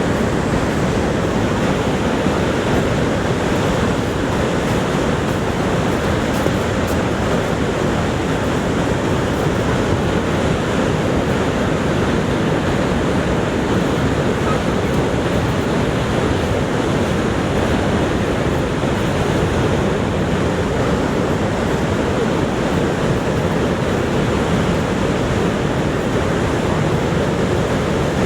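Niagara Falls' water pouring down, a loud, dense, unbroken rush that stays even throughout.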